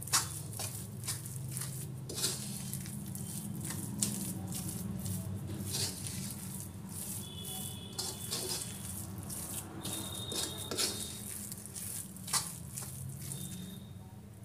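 A metal spoon scraping and clicking against an iron kadhai as a sticky grated-coconut mixture is stirred, then a hand rubbing and pressing the mixture against the pan, making irregular scrapes and clicks over a steady low hum.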